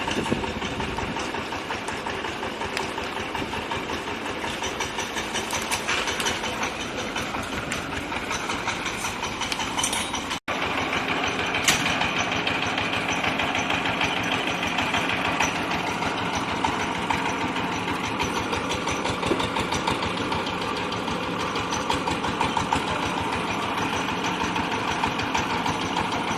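Compressed-air well-drilling rig running steadily: engine-driven air compressor with the rapid knocking of the air drill hammer working into rock. The sound cuts out for an instant about ten seconds in.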